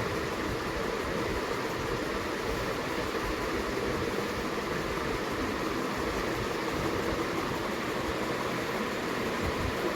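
Steady mechanical whirring noise with an even hiss, unchanging throughout.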